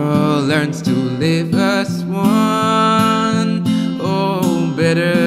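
A song played on strummed acoustic guitar, with a melody line that wavers and slides in pitch above the chords.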